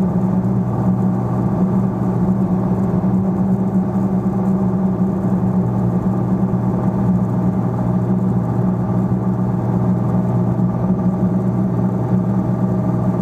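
Piper PA-46 Malibu's engine and propeller running steadily in cruise, heard from inside the cockpit: a loud, even drone with a strong low hum that holds one pitch throughout.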